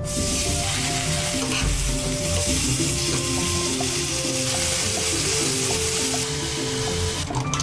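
Food frying in hot oil in a pan, a loud steady sizzle that starts suddenly and dies away near the end.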